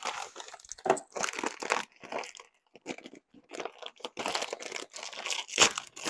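Dry stuffing mix crinkling and crunching as it is poured in and stirred into a pot, in a run of uneven rustling strokes with the loudest near the end.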